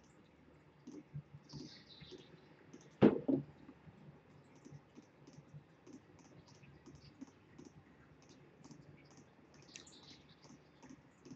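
Computer mouse button clicking faintly and steadily, about two clicks a second, as fill points are placed one after another. There is one louder, sharp thump about three seconds in.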